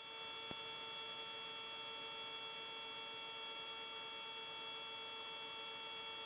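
Steady electrical hum of a few high, unchanging tones over faint hiss on a helicopter's intercom audio feed, with a single faint click about half a second in.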